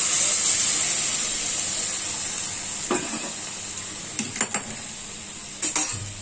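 Boiled matar dal with vegetables hitting hot tempering oil in a frying pan, sizzling with a steady hiss that slowly dies down. From about three seconds in come a few sharp knocks of metal against the pan.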